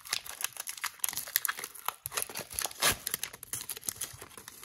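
Foil wrapper of an Upper Deck hockey card pack crinkling and tearing as it is pulled open by hand: a dense, irregular run of sharp crackles.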